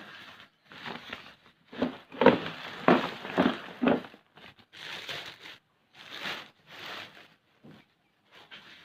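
Rustling, crinkling and scuffing from someone clambering up and handling dry nest material, in a string of uneven bursts that are loudest a couple of seconds in.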